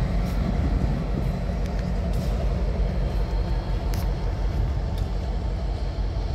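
EMD GP38-2 diesel locomotive running light, its engine a steady low rumble.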